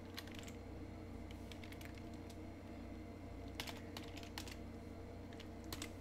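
Computer keyboard typing in four short bursts of keystrokes, over a steady low hum.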